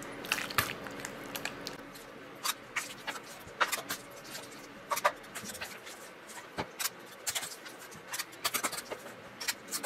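Stainless steel cookie scoop scraping through ground-beef mixture in a stainless mixing bowl and against the metal muffin pan, with irregular scrapes and sharp metallic clicks as portions are scooped and released.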